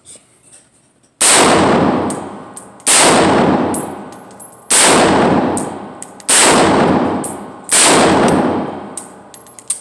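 Five shots from a Smith & Wesson MP15 AR pistol with a 7.5-inch barrel, firing 5.56/.223, about a second and a half apart. Each shot rings out in the indoor range, with lighter clicks between them.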